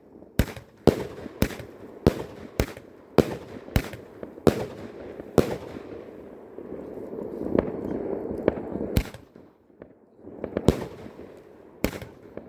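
Albert Feuerwerk 'Neon City' firework battery firing shot after shot, with sharp bangs about every half second. A stretch of crackling hiss with scattered bangs comes in the middle, then a brief lull and two more bangs near the end.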